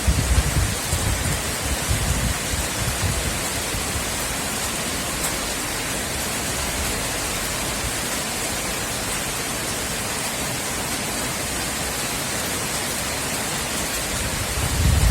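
Heavy rain falling in a steady, even hiss. Low rumbles of thunder sound in the first couple of seconds and build again just before the end.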